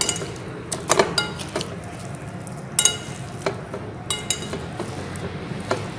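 Metal forks clinking and scraping against a glass mixing bowl while tossing flour-coated fish pieces. A handful of sharp, irregular clinks, a few with a brief glassy ring.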